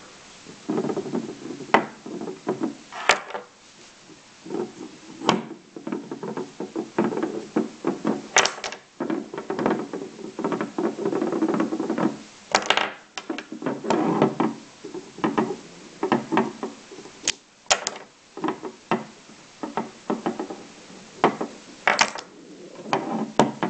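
Magnetic construction-toy pieces, plastic-covered magnet rods and steel balls, being snapped apart and set down on a wooden table: irregular sharp clicks and clacks with handling noise between them.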